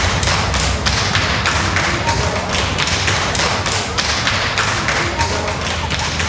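A group of children clapping their hands together in a steady rhythm, about four claps a second.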